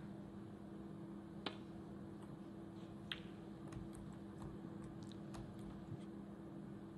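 Sharp clicks of snooker balls as a shot is played and a red is potted, the loudest about a second and a half in and another about three seconds in, over a steady low hum.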